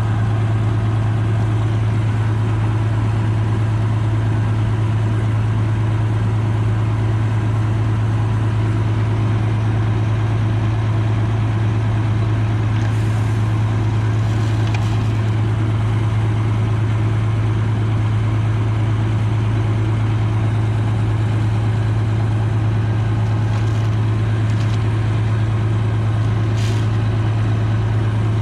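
Oliver 7300 combine running with a steady, unchanging low drone. A few faint ticks sound around the middle and near the end.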